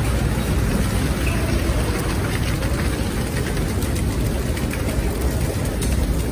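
Steady low rumble of commercial kitchen machinery, with a tilting steam kettle pouring a thick curry into a large steel pot.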